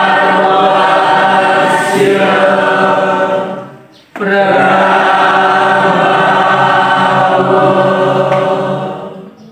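A group of voices chanting a Hindu devotional chant in long held notes: two sustained phrases with a short pause for breath about four seconds in, the second fading out near the end.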